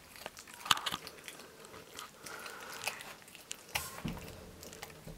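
A raccoon biting and chewing on a cooked chicken leg: irregular wet crunches and clicks of teeth on meat and bone, with a sharp crunch less than a second in.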